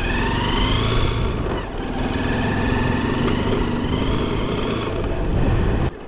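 Motorcycle engine running under way, its whine rising and falling as the revs change. The sound cuts off suddenly near the end.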